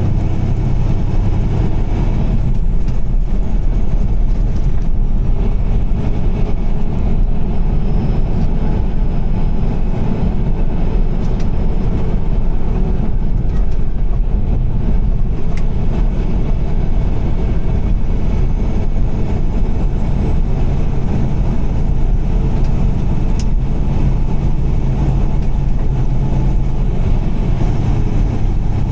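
Car driving on a highway: a steady low rumble of engine and road noise that holds evenly throughout.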